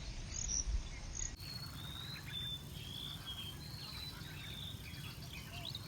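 Faint outdoor ambience of high-pitched insect and bird chirps over a low rumble. The background changes abruptly about a second and a half in, after which the short chirps come thickly.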